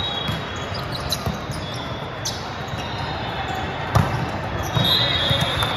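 Volleyballs thudding and slapping off hands and the gym floor over a steady background din, with the sharpest hit about four seconds in.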